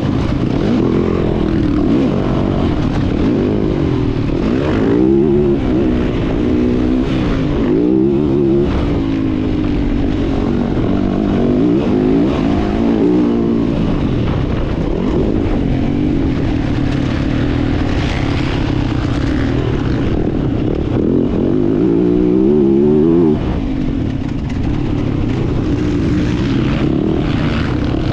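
Yamaha motocross bike's engine heard from on board, revving up and down again and again as the rider accelerates, shifts and backs off. About five seconds before the end a long, loud pull at high revs drops off suddenly.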